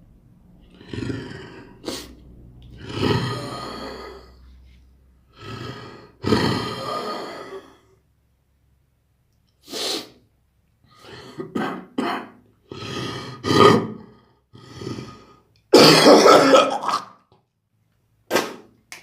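Wet, chesty human coughing: a string of separate bouts, some single coughs and some quick runs of several, with short silences between. The longest and loudest bout comes about three-quarters of the way through. The coughs are loose and wet, the sign of mucus in the airways.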